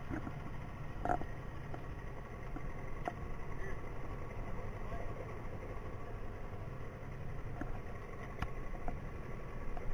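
A small boat's motor idling: a steady low rumble, with a few faint knocks.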